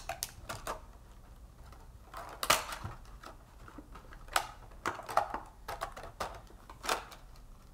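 Thin clear acetate plastic clicking and crinkling in scattered short snaps as hands push the tabs and pieces of a box lid into place.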